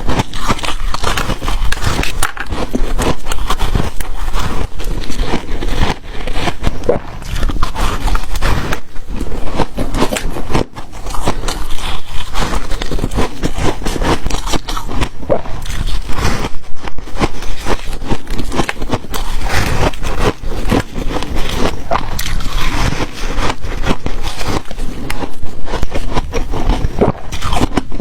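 Close-up crunching of ice being bitten and chewed: a dense run of crackles and snaps that goes on without a break.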